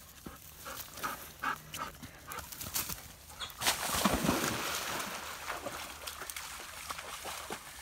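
A black Labrador and a border collie dash through grass and leap into a shallow creek. About three and a half seconds in comes a burst of splashing as they land and wade through the water, fading over the next few seconds.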